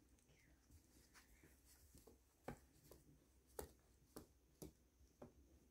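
Near silence: room tone with a few faint, short clicks scattered through the second half.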